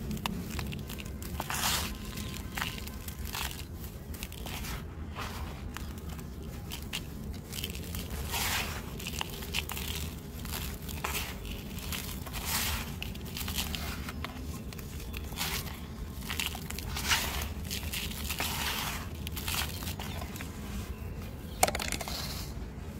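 Dry, crumbly mud being squeezed and crushed by hand, its grains and dust pouring back down in an irregular string of gritty crunching rushes. A sharper knock comes near the end.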